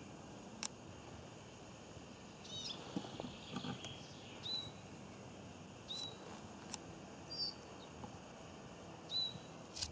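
Faint, short, high-pitched bird chirps repeating every second or two, with a few sharp soft clicks in between.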